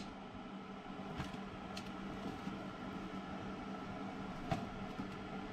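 Boots being slid onto the tubes of an electric boot dryer: a few light knocks, the loudest about four and a half seconds in, over a faint steady low hum.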